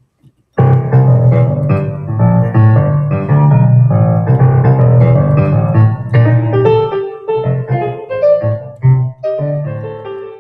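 Digital piano playing its 'Nashville' piano sound: loud full chords over a strong bass, starting about half a second in and thinning to lighter, higher notes in the last few seconds.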